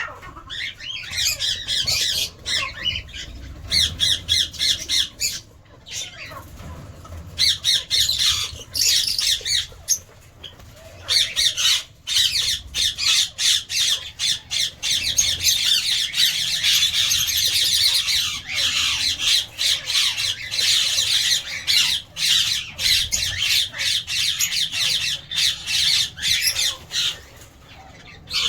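Lovebirds chattering and squawking: rapid, shrill, high-pitched calls in bouts, with brief lulls in between.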